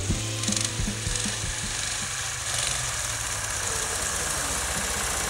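Two homemade snowmobiles with walk-behind-tractor engines running at full throttle side by side in an acceleration race, a steady engine drone that turns to broader noise about halfway through.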